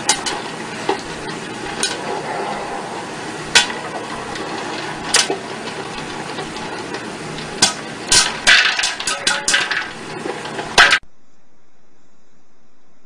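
Sharp knocks and clatter against an upturned clear bowl on a counter, over a steady hiss. The knocks are scattered at first, then come in a quick flurry near the end. They cut off abruptly about eleven seconds in, giving way to a fainter steady hiss.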